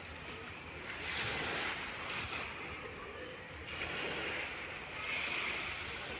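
Waves washing onto a sandy beach, the surf swelling and easing every couple of seconds.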